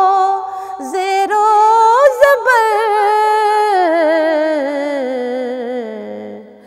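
A woman singing a naat, a devotional Urdu poem, solo into a microphone: long held notes with quavering ornaments, the melody stepping down in pitch and fading out near the end.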